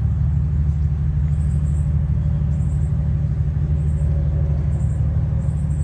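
A lawn mower's small engine running steadily, a constant low drone.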